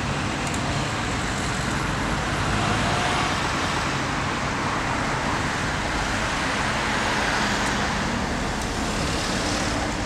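Road traffic: cars passing close by, a steady rush of tyres and engines that swells slightly as each one goes past.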